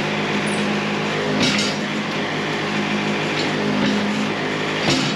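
Wood-Mizer LT70 sawmill running steadily, with two sharp metallic clanks, about one and a half seconds in and near the end, as the cant is handled on the mill bed.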